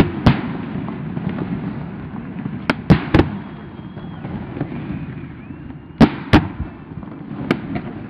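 Aerial fireworks shells bursting overhead: about six sharp booms, several in quick pairs, with a low rumble carrying on between them.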